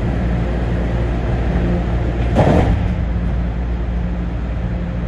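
Steady low hum of the Dulles airport AeroTrain people mover standing at a station, with a brief rush of noise about two and a half seconds in.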